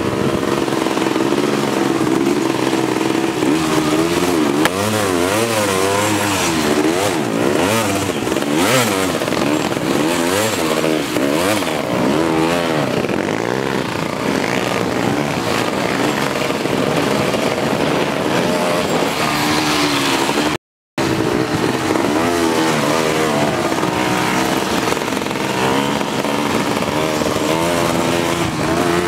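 Four-wheeler (ATV) engine running hard, its pitch rising and falling again and again as the throttle is worked over rough ground. The sound cuts out for a split second about twenty seconds in.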